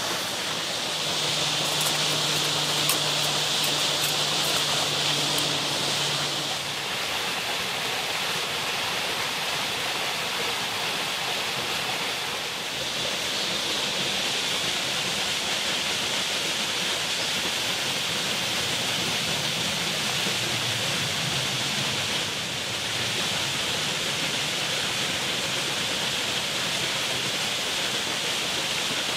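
Steady rush of flowing water, even and unbroken throughout. A faint low hum and a few small crackles sound over it during the first several seconds.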